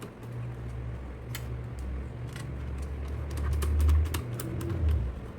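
Screws being driven to fasten a cooling fan back into a computer power supply's case: a run of small, irregular metallic clicks and scrapes over a low handling rumble.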